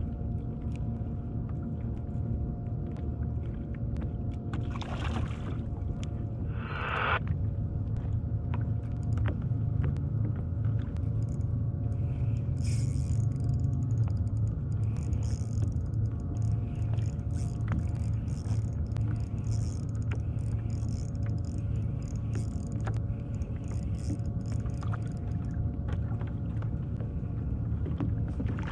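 Steady low mechanical hum with a few faint steady tones in it, swelling through the middle and easing off again. Scattered light clicks and taps run through it.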